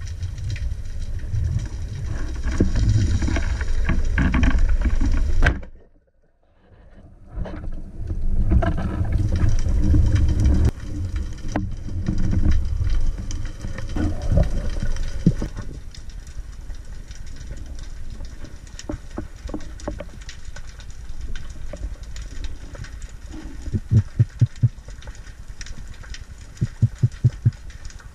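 Underwater camera audio: low rumbling water noise and knocks from the diver's movement against the housing, cut off briefly about six seconds in. Near the end come two short runs of quick low thumps.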